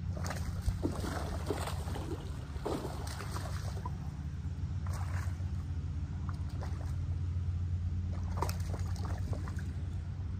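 Water splashing and sloshing in short bursts as a hooked bass is brought in, over a steady low hum.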